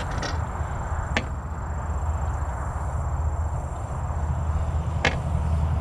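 Three sharp knocks on a boat as a bass is landed over the side: one near the start, one about a second in, and one about five seconds in. A steady low rumble runs underneath.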